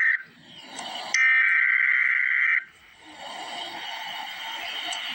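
Emergency Alert System SAME header data bursts, a harsh two-tone digital screech. One burst cuts off right at the start and a second full burst runs from about one second to two and a half seconds in, with a fainter noisy sound in the gaps.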